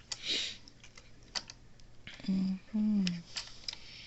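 Scattered light clicks and a short hiss, then a voice making a few short hummed sounds that fall in pitch, from about halfway.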